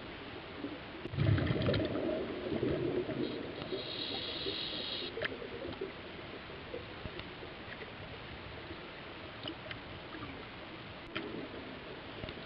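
Muffled underwater sound picked up by a submerged camera: steady watery noise, with a louder low swell about a second in, scattered faint clicks, and a brief high whine a few seconds in.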